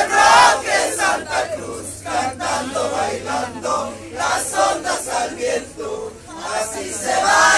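A crowd singing together, many voices overlapping, loudest near the start and again near the end.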